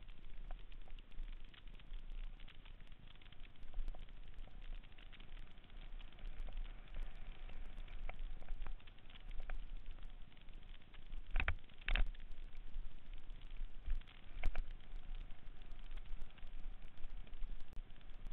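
Mountain bike riding fast down a dirt singletrack: tyres on dirt and the bike rattling make a constant crackle of small clicks, with a few harder knocks a little past halfway.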